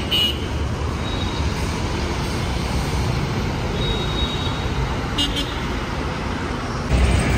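Road traffic: a steady rumble of motor vehicles, with a louder low rumble coming in near the end.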